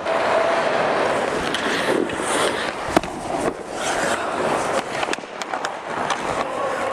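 Ice hockey play: skate blades scraping and carving on the ice. About three seconds in a sharp crack marks a shot on goal, followed by scattered smaller clacks of sticks and puck.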